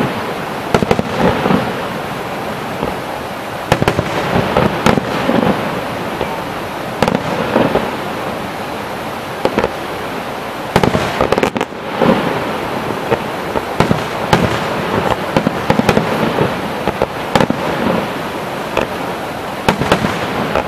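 Aerial firework shells bursting in a fireworks display: many sharp bangs at irregular intervals over a continuous dense din.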